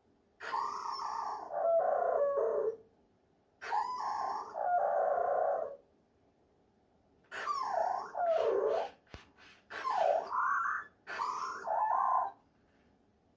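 LOVOT home robot's synthetic voice while it sleeps: five short warbling calls, each a second or two long with the pitch sliding up and down, separated by pauses, which sound like snoring or sleep talking. A single small click comes about nine seconds in.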